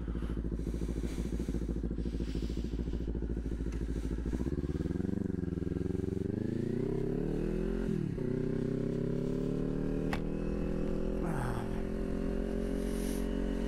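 Kawasaki 400 sport bike's parallel-twin engine idling, then revving as the bike pulls away. The revs drop sharply at a gear change about eight seconds in, then hold a steady cruise.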